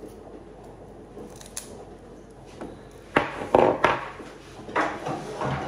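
A few sharp knocks and clatters of a kitchen knife and utensils handled on a plastic cutting board on the counter, beginning about three seconds in.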